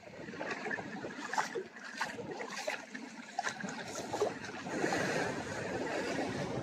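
Small waves washing in over a black-sand, rocky shore, with scattered light clicks and knocks.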